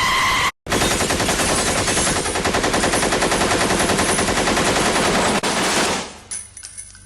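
A held tone cuts off about half a second in. After a short gap comes about five seconds of rapid automatic gunfire, a continuous string of fast shots, which dies away with a faint ringing tail near the end.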